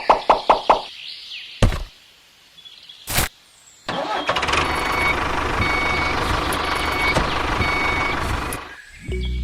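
A quick run of about seven clicks and two separate knocks, then an engine starts and runs steadily for about five seconds with a reversing beeper sounding about every 0.7 s, stopping shortly before the end.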